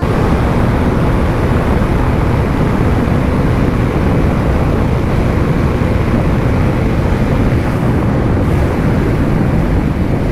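Bajaj Dominar 400 motorcycle cruising steadily at highway speed, heard mostly as a loud, even rush of wind over the microphone with the engine running underneath.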